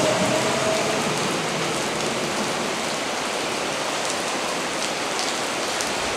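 Heavy rain falling steadily on the station roof, platform and tracks, a dense even hiss. In the first second the faint whine of a departing electric train fades out, and a few light ticks of drops sound in the second half.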